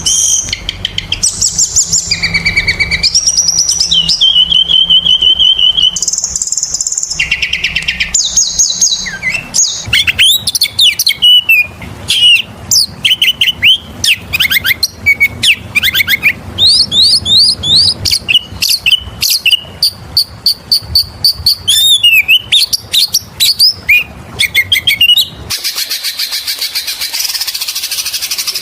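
Oriental magpie-robin (kacer) singing loudly without a break: held whistled notes at first, then a fast run of varied chirps and sweeping notes, and near the end a long harsh rasping note.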